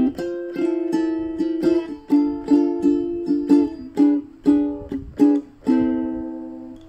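Ukulele strummed in short plucked chords, a stroke about every half second, closing on a chord left to ring for about a second.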